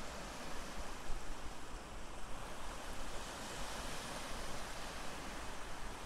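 Ocean waves washing as a steady rush of surf, swelling about halfway through.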